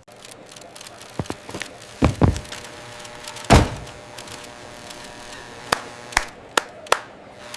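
A series of irregular knocks and thuds over a steady background hiss, about ten in all. The heaviest thud comes about three and a half seconds in, and a run of sharper, lighter knocks follows near the end.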